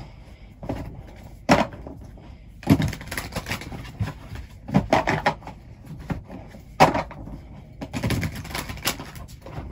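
Tarot cards being shuffled and handled: irregular sharp clicks and knocks over a rustle, with louder clatters now and then.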